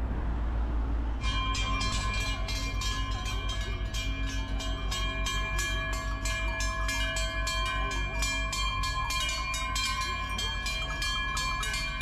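Large cowbells worn by a walking herd of cows, clanging together. A fast run of clanks sounds over a chord of ringing tones. The bells start abruptly about a second in, after a low rumble of street noise.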